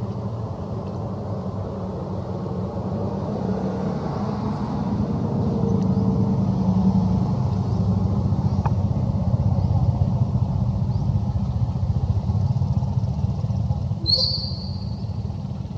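Low rumble like motor traffic that swells in the middle and eases near the end, with a brief high squeak about fourteen seconds in.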